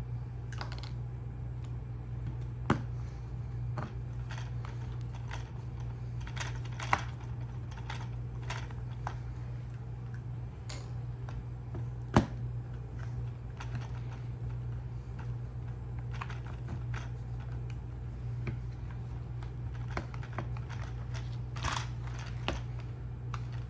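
Hand disassembly of a Mint robotic floor cleaner's plastic housing, with a Phillips screwdriver at the screws hidden under the stickers on the bottom: scattered small clicks and ticks of tool and plastic, a few sharper snaps among them, over a steady low hum.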